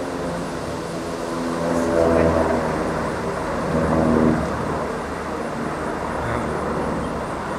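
Low-flying airplanes passing overhead, their engines a loud drone that swells twice, about two and four seconds in.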